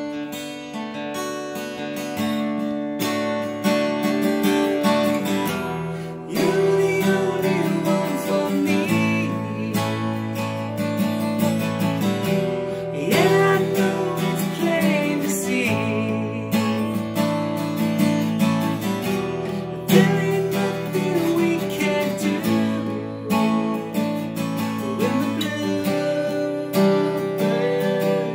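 Acoustic guitar music: strummed chords with a changing harmony, and a melody line over them that bends in pitch in places.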